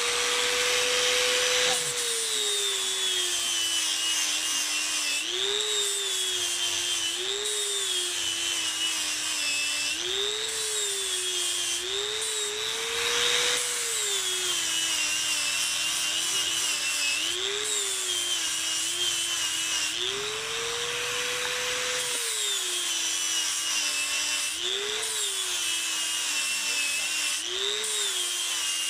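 Electric angle grinder with a flap disc grinding a water buffalo horn. The motor's whine sags in pitch each time the disc bears down on the horn and climbs back when it is eased off, about a dozen times, over a steady hiss of grinding.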